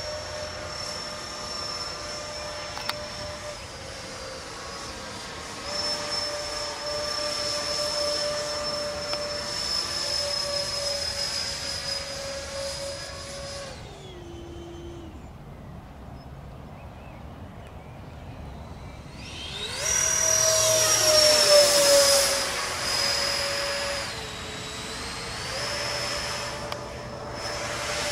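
Twin electric ducted fans of a Freewing MiG-29 RC jet whining at a steady high pitch. About halfway through the throttle comes off and the whine drops and fades. A few seconds later it spools back up with a rising whine, is loudest for a couple of seconds, then settles back to a steady whine.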